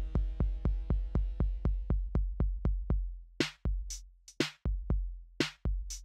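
Electronic music from a drum machine: a fast kick pulse about four times a second under a held synth chord that fades away. About three seconds in, it gives way to a sparser beat of deep bass kicks and snare hits.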